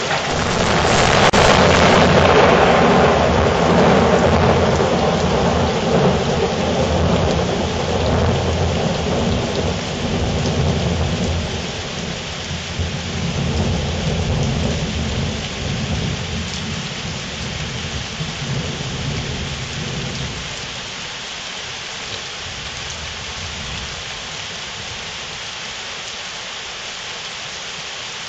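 Thunderstorm: heavy rain falling steadily, with a loud clap of thunder right at the start that rolls on as a deep rumble for about twenty seconds and dies away, leaving the rain.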